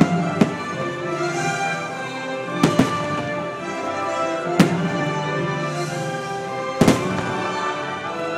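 Aerial firework shells bursting with six sharp bangs, singly and in quick pairs, over a bed of orchestral show music.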